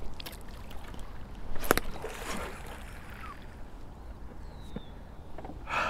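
A single sharp knock on an aluminum canoe about a second and a half in, over a faint steady hiss of open air and water.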